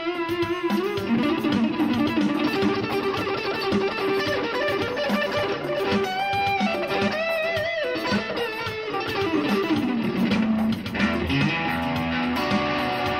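Electric guitar played as music, a melodic line of held notes with wavering, bent pitch over lower sustained tones.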